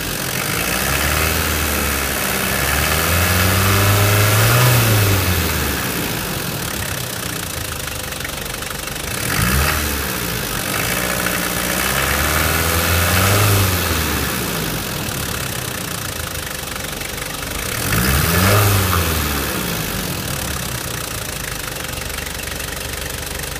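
Nissan TD27ETi 2.7-litre four-cylinder intercooled turbo diesel engine idling and revved four times: two longer pulls and two quick blips, each falling back to idle, then left idling near the end.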